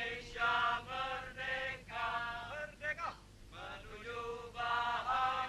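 A man's voice singing in a chant-like way, in held notes that bend in pitch, over a steady drone note.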